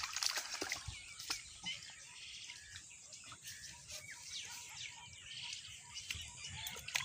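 Birds chirping, many short scattered calls, faint over a quiet outdoor background.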